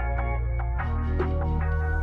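Background music: an electronic track of quick plucked notes over a steady low bass.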